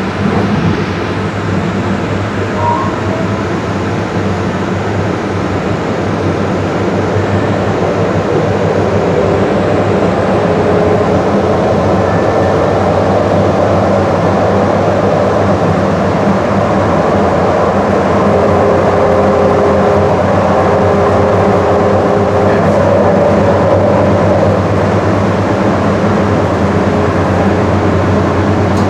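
DART light rail train under way, heard from inside the car: a steady rumble of wheels on the track with a low hum. It grows a little louder over the first ten seconds or so.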